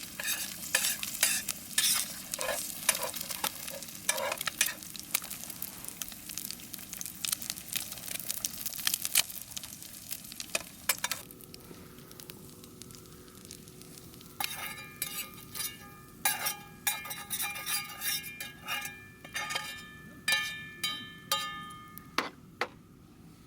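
Slices of beef tongue sizzling and crackling in a frying pan over a campfire. The sizzle dies down about halfway through, and a run of light metallic taps that ring briefly follows.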